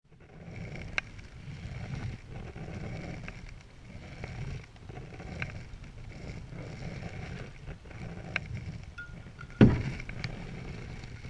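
Selway Fisher Wren canoe being paddled with a wooden paddle: a steady rhythm of strokes swishing through the water, with light clicks of the paddle against the hull and one louder thump near the end.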